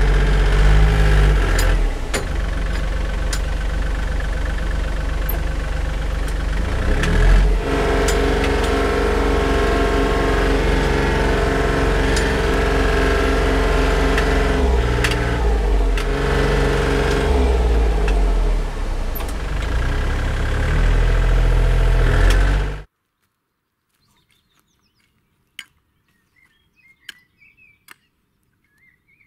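Compact tractor engine running as the front loader hauls and spreads soil, its speed rising and falling, with occasional knocks. About 23 seconds in the engine sound cuts off abruptly, leaving only faint scattered clicks.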